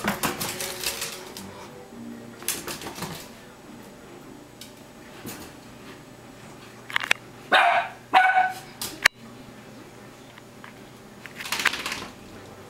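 Dachshund barking twice in quick succession, a little past the middle. Around the barks come bursts of scratching and rustling from the dogs digging and tumbling in their blanket-lined bed, with one sharp click.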